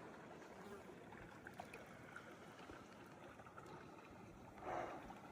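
Faint, steady running water of a small mountain creek, with a brief louder swish of noise near the end.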